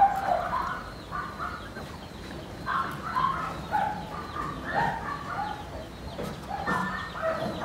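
A litter of young puppies whining and yipping in short, high calls that come in clusters.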